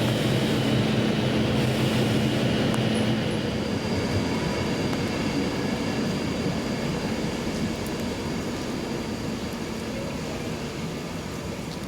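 A train running past, a steady mechanical hum with faint whining tones that slowly fades away over the second half.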